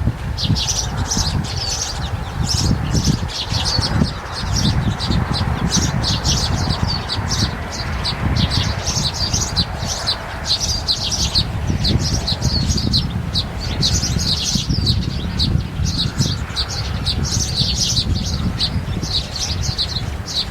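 Many small birds chirping rapidly and continuously in high, short notes, over a constant low rumbling noise.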